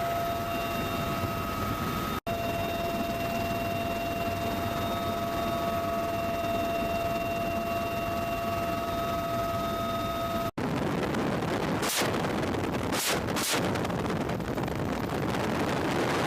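Steady engine noise with a fixed high whine for about ten seconds. Then, after a cut, an M134 Gatling gun fires, heard as a dense continuous roar with sharper bursts a little past halfway through that part.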